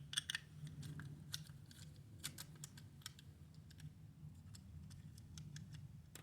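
Faint, irregular small clicks and ticks of a triangular security-bit screwdriver working small screws out of a plastic toy, over a steady low hum.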